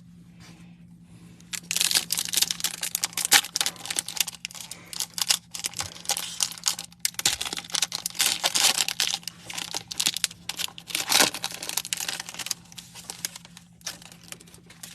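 A sports card pack wrapper crinkling and tearing as a 2023 Contenders Football pack is ripped open, with dense rustling and crackling for about eleven seconds after a quiet start.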